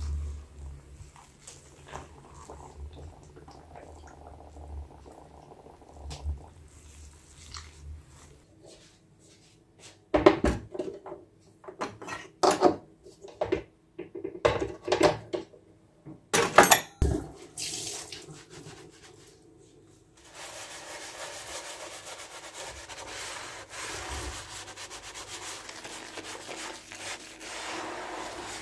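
Hands swishing softly in a basin of soapy water, then a run of loud knocks and clatter about ten seconds in as an electric contact grill is opened and handled. From about twenty seconds a sponge scrubs steadily over the grill's ribbed, soapy plates.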